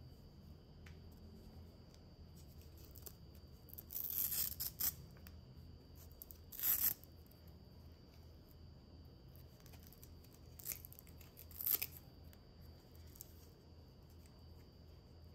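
Promax hook-and-loop (velcro) cable tie tape being pulled apart from its roll in short ripping rasps, four or so, the first and longest about four seconds in, the others a few seconds apart.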